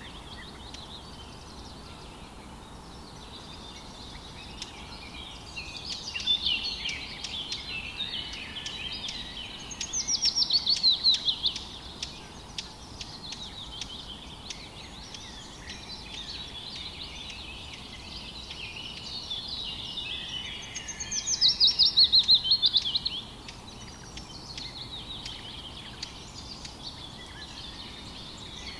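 Small songbirds chirping and warbling over a faint steady background noise, with two loud runs of rapid, downward-sweeping notes, each a second or two long, about ten and twenty-one seconds in.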